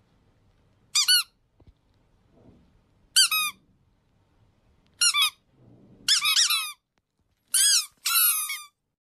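Short high-pitched squeaks, each arching up and down in pitch, coming singly, in pairs and in quick runs a second or two apart, with near silence between.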